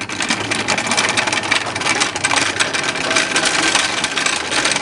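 Floor jack's wheels rolling and grinding over rough pavement under the weight of an engine: a steady gritty rattle full of small clicks.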